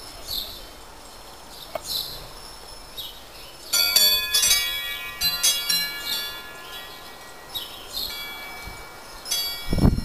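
Wind chimes ring about four seconds in, several metal tones at once that fade over a couple of seconds, while a small bird repeats short high chirps. A loud low rumble comes at the very end.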